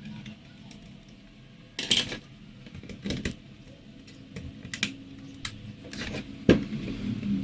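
Scattered sharp clicks and knocks from a laptop being handled, about five of them spread irregularly over several seconds, the loudest near the end, over a faint low hum.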